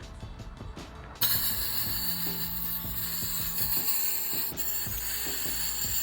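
A loud, steady mechanical whirring with a rattle starts suddenly about a second in and keeps going.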